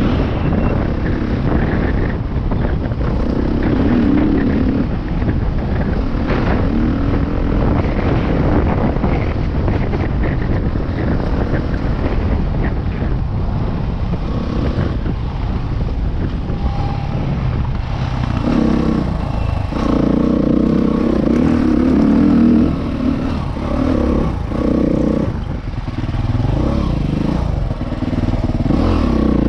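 Husqvarna trail bike engine running hard on a dirt track, the note rising and falling with the throttle, with a few short drops as the throttle is closed about two-thirds of the way through.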